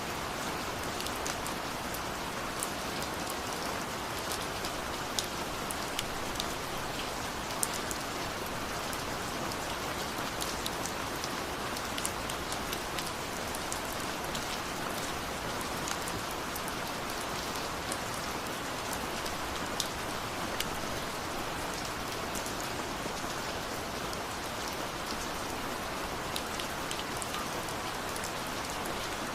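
Steady rain falling, an even hiss with the sharp taps of individual drops scattered through it.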